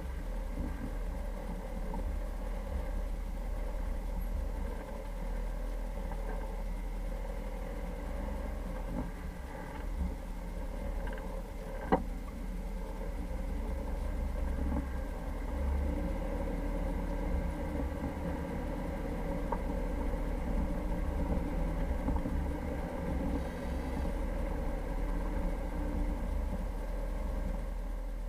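Jeep Cherokee engine running steadily while driving, with a deep rumble, and one sharp knock about midway.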